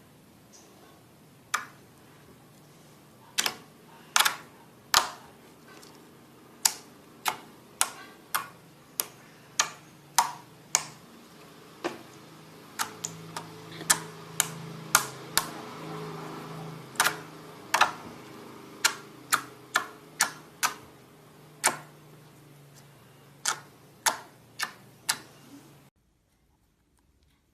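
Clear slime being worked in the hands, making sharp irregular pops and clicks, about one to two a second, that stop abruptly near the end.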